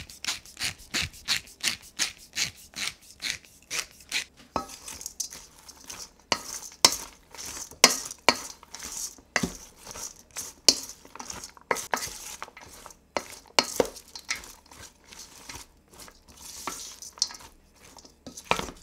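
A wooden spoon tossing shredded cabbage, carrot and fennel slaw in a stainless steel bowl. The spoon knocks against the bowl quickly and evenly, about three or four times a second, for the first few seconds, then more loosely, with the rustle of the vegetables over the knocks.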